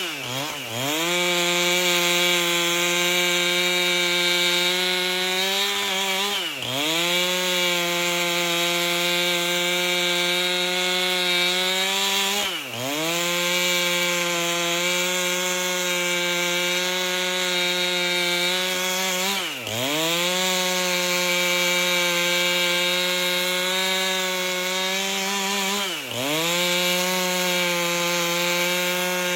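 Chainsaw with a 30-inch bar ripping lengthwise through an albasia log, the engine running at high speed under load. Five times, about every six seconds, its pitch dips sharply and climbs back.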